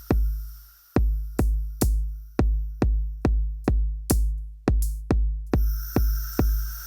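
Electronic groove from an Elektron Digitakt drum machine: a steady deep kick drum with a long booming tail, a little over two hits a second. One beat drops out just under a second in. A high hissing layer cuts out at about the same time and comes back about five and a half seconds in.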